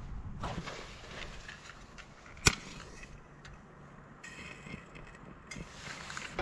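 Small handling clicks and knocks with one sharp click about two and a half seconds in, over a low rumble of wind on the microphone.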